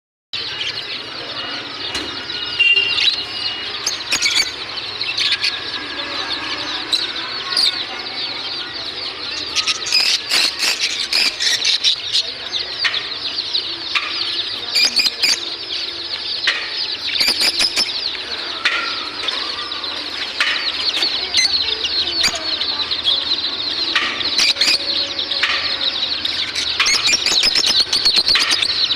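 Mixed flock of caged budgerigars, lovebirds and Java finches chirping and chattering without pause, a dense high warble with many short, sharp clicks and flutters scattered through it.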